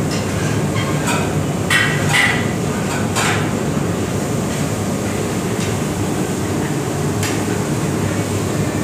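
Steady mechanical hum and rumble of commercial kitchen machinery, with a few short knocks and clatters between about one and three seconds in and one more near the end.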